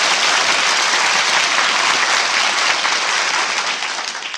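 Studio audience applauding, a dense steady clapping that thins out near the end.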